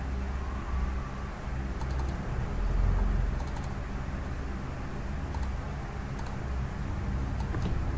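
Computer mouse clicking a handful of times, some clicks in quick pairs, a second or two apart, over a steady low hum.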